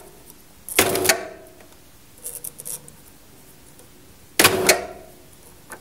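Aluminium roller shutter curtain being wound up by its tubular motor: two loud metallic clattering clunks, about a second in and about four and a half seconds in, with faint ticking between them.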